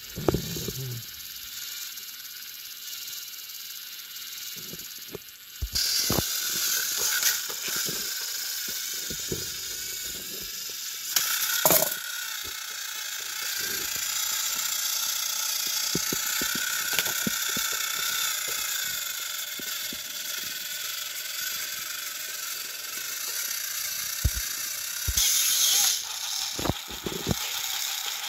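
Motorised toy train engines running, their small electric motors and plastic gears whirring steadily with a ratcheting edge while coupled back to back and pushing against each other. The whir grows louder about six seconds in, with scattered clicks and knocks from the toys being handled.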